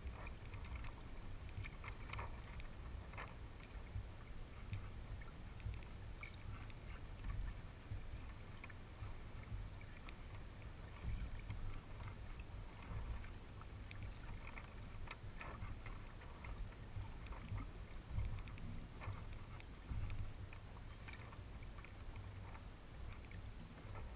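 Water lapping and splashing against the hull and outrigger float of a Hobie Adventure Island sailing kayak moving slowly through calm water. There is a low, uneven rumble underneath, with small irregular splashes now and then.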